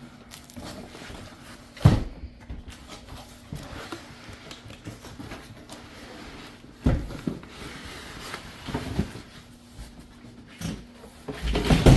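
A large cardboard box being flipped and wrestled with: rustling and scraping cardboard, with heavy thumps about two seconds in, about seven seconds in, and a cluster of knocks near the end.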